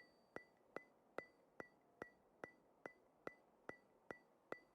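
Faint, evenly spaced ticks, about two and a half a second, each with a short high ring.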